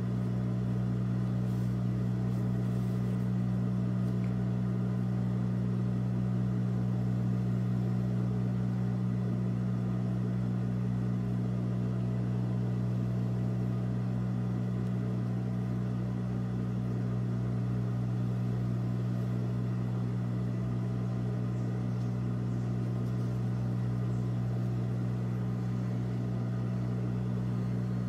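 A steady low electric hum that holds one even pitch throughout.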